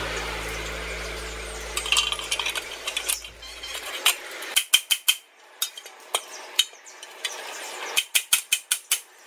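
Metal parts clinking and sharp taps as a steel shaft, bearing flange and gear are worked into a square steel gearbox housing, with a quick run of about six taps near the end. Background music fades out over the first few seconds.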